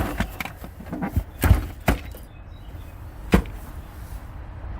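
Knocks and thuds of junk being shifted and dropped in a dumpster: a handful of separate hard impacts, the loudest about one and a half seconds in and another near the end.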